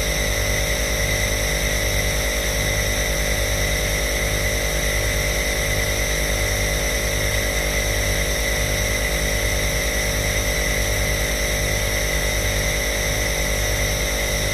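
Compressor nebulizer (inhaler machine) running steadily: a constant motor buzz with a slow, even pulsing and a hiss of air.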